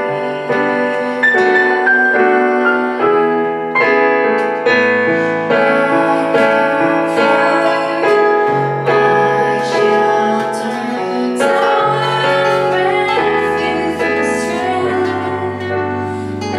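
A woman singing along to a digital piano, with an acoustic guitar playing chords alongside.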